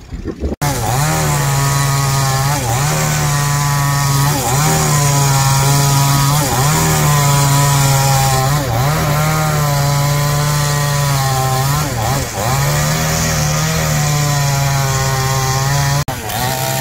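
Two-stroke gasoline chainsaw running at high revs while cutting through a thick wooden beam. Its engine note dips briefly about every two seconds.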